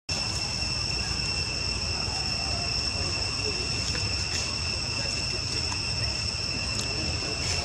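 Insects trilling steadily in one high, even tone, over a low rumbling background.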